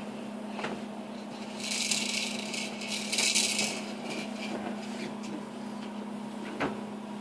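Rustling and rattling of crib bedding for about two seconds, starting near the two-second mark, as a toddler burrows under his pillow and blanket. A steady low hum runs underneath.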